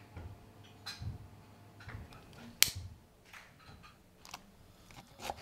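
A single sharp click about two and a half seconds in, over faint low hum and a few small ticks.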